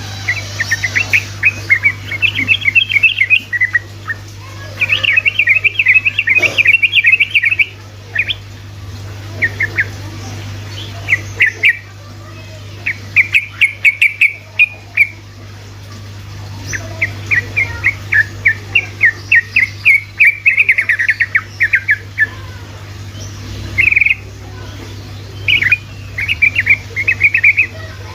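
Yellow-vented bulbul (trucuk) singing its rapid 'ropelan' song: runs of quick, chattering notes one to three seconds long, broken by short pauses. A steady low hum lies underneath.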